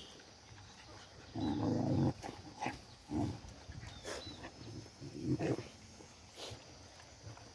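Puppy vocalising during rough play: a growl of under a second about a second and a half in, then a few shorter growls.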